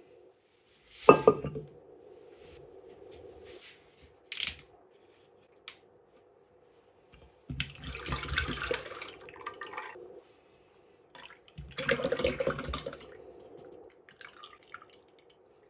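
Fresh cream poured from a carton into an empty stainless-steel pot, in two long pours that splash and drip against the metal. There is a single loud knock about a second in.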